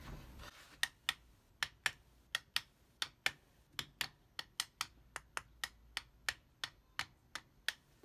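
A run of short, sharp clicks, about four a second, as a screwdriver tightens the housing screws on a vintage box fan's reassembled motor.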